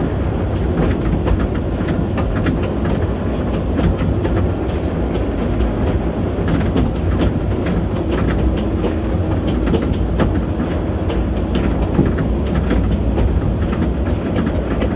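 Kurobe Gorge Railway narrow-gauge train running, heard from aboard its open-sided Ha-type passenger car: a steady rumble of wheels on rail with frequent irregular clicks and clacks.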